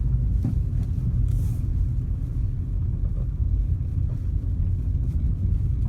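Steady low rumble of a car driving along: road and engine noise.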